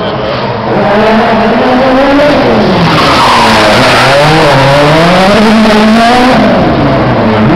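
Ford Fiesta RS WRC rally car's turbocharged 1.6-litre four-cylinder engine revving hard as it drifts in tight circles, its note climbing and falling twice, with the tyres screeching throughout. Very loud.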